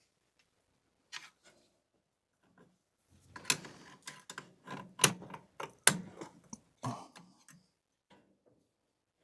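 An irregular run of sharp clicks and knocks from hands working on an old car, with three louder knocks in the middle.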